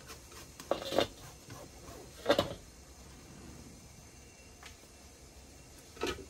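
Kitchen utensils clattering at a rice-roll steamer: the aluminium pot lid and tools knock a few times, with a pair of clanks about a second in, the loudest past two seconds, and another near the end.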